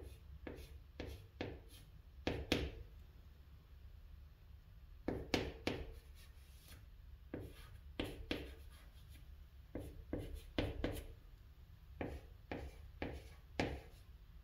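Chalk writing on a chalkboard: short tapping and scraping strokes in quick bunches as a character and its reading are written, with a pause of about two seconds near the start.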